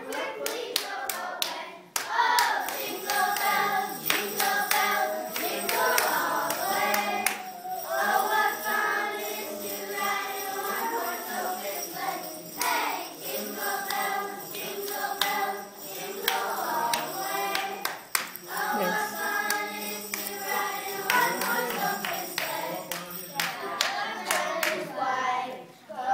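A group of young girls singing a Christmas carol together, with sharp clicks scattered through the singing.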